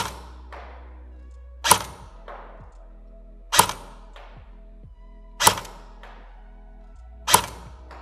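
CYMA AKS-74 electric airsoft rifle (a version 3 gearbox AEG on an 8.4 V battery) firing five semi-auto shots, about one every two seconds. Each shot is a sharp snap of the gearbox and piston with a short ringing tail, here sending 0.2 g BBs through a chronograph at about 388–389 ft/s. Background music plays steadily underneath.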